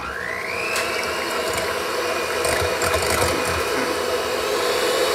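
Electric hand mixer switching on: its motor whine rises over the first second, then runs steadily as the beaters churn eggs and sugar in a glass bowl.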